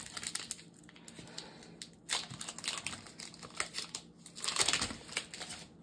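Foil wrapper of a Pokémon TCG booster pack crinkling and tearing as it is opened by hand, in irregular crackly bursts that are loudest about two seconds in and again around four and a half to five seconds in.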